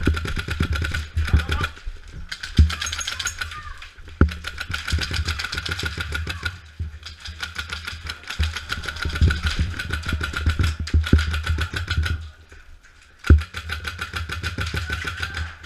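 Long bursts of rapid full-auto airsoft rifle fire, a fast even stream of shots broken by short pauses.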